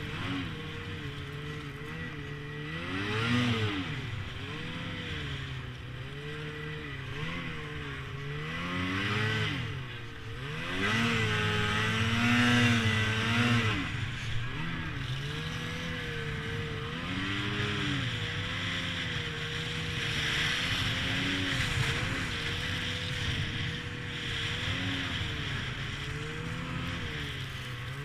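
Snowmobile engine running while under way, its pitch rising and falling several times as the throttle is opened and eased, loudest around the middle, over a steady hiss.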